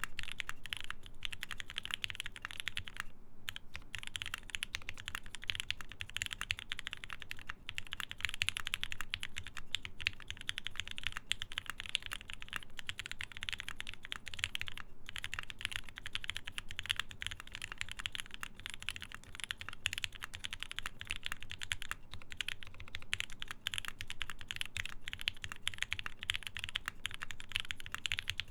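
Steady, fast typing on a Geonworks F1-8X mechanical keyboard with lubed Gateron Ink linear switches, a full aluminium plate and CRP keycaps. Keystrokes come in a dense, continuous stream, with brief pauses about three seconds in and midway.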